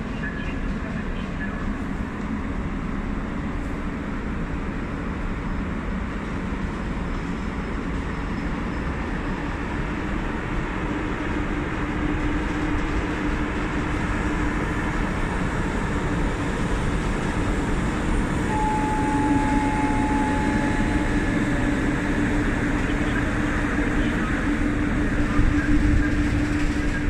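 CTL Logistics ET22 electric locomotive passing with a long freight train of loaded open coal wagons: a steady rumble of wheels on rails that grows a little louder as the wagons roll by. A steady hum comes in about halfway, and a brief higher tone sounds about two-thirds of the way through.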